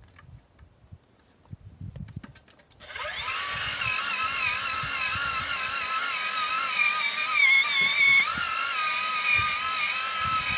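Small power drill starting up about three seconds in and running steadily with a slightly wavering whine, boring into the soil of a post hole to loosen it for digging out.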